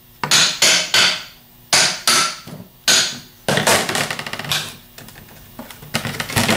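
Hammer tapping on the front half of a Delco 22SI alternator's metal case: about six sharp metallic strikes in three seconds, knocking the front housing loose from the back half. Then a run of quick rattling clicks as the loosened front half and rotor are worked out by hand.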